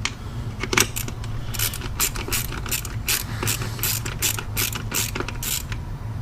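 Ratchet wrench being worked in short strokes, a run of sharp clicks about three a second, tightening a fastener while the air box is refitted in an engine bay. A steady low hum runs underneath.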